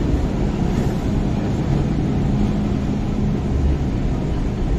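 MTR Island Line M-Train electric multiple unit pulling into the platform and slowing, a steady low rumble of wheels on rails with a steady hum from the train.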